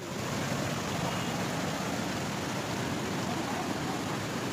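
Floodwater rushing past in a steady, even noise that does not change.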